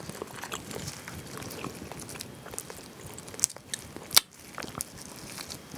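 Cooked spicy crayfish shells cracking and crackling as gloved hands break and peel them: a run of short sharp clicks, with one loud snap about four seconds in.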